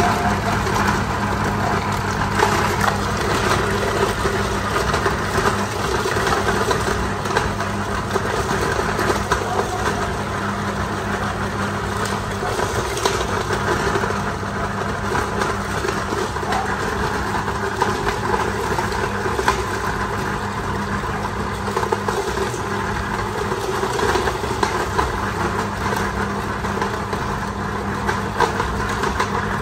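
Electric belt-driven cast-iron size-32 meat grinder running steadily while grinding fish heads and bones, a constant motor hum with small crackling and crunching as the pieces are forced through the auger and plate.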